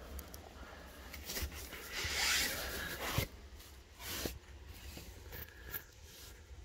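Gloved hand scraping and rubbing through loose dirt in a series of short scrapes, the longest and loudest about two seconds in, with a sharp click just after three seconds.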